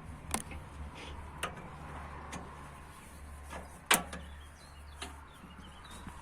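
Low steady engine hum with scattered light clicks and one sharp knock about four seconds in.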